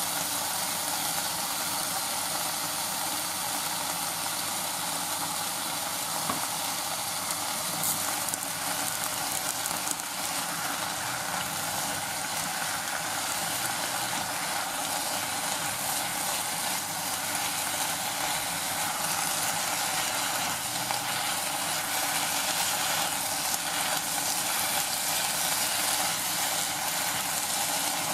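Sliced onion, potato and beef frying in a small stainless saucepan, a steady sizzle as chopsticks stir them.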